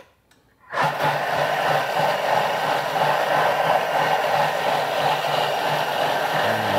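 Countertop blender motor starting about a second in and running steadily at high speed, pureeing a liquid soup to make it finer.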